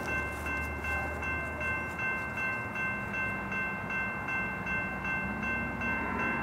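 Railroad grade-crossing bell dinging rapidly and steadily, over the low rumble of an approaching train.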